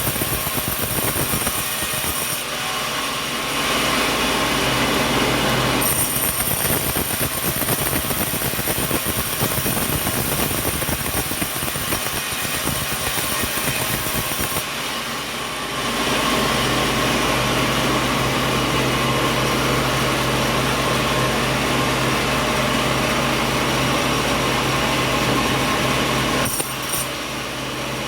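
Sawmill saw running steadily, with its tone shifting a few times.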